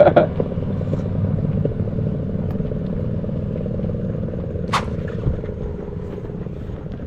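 Harley-Davidson Iron 883's air-cooled V-twin running steadily through an RSD 2-into-1 exhaust, easing off slightly near the end. One short sharp sound comes about five seconds in.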